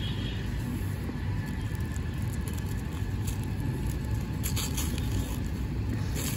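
Plastic wrap crinkling and a parcel's packaging being picked at and torn open, in short scattered rustles, over a steady low rumble.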